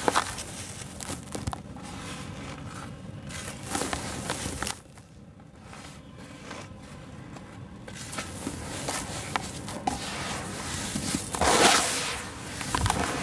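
Hands crumbling and squeezing dry sand-and-cement mix: gritty crunching and rustling of the powdery clumps breaking apart. There is a quieter spell about five seconds in, and the loudest crunch comes near the end.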